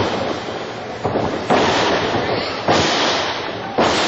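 A run of loud, sharp impacts about one every 1.2 seconds, each followed by a long echo in the large hall: a softer one about a second in, then three strong ones.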